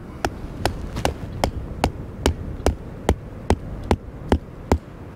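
An even series of sharp knocks, about two and a half a second, all of much the same loudness.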